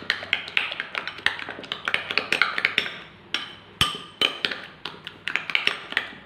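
An egg being beaten with a fork in a small bowl: rapid, uneven clinks and taps of the fork against the bowl, with a brief pause a little past halfway.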